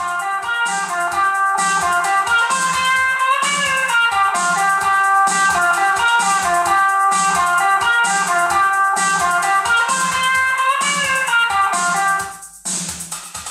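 Instrumental rock music: a guitar melody with bent notes over a steady drum beat. The music cuts out briefly near the end, then the drums come back in.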